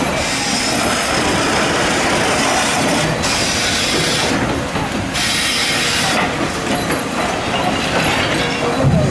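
Excavator working: loud, continuous, grinding mechanical noise with a harsh hiss that cuts out and comes back several times.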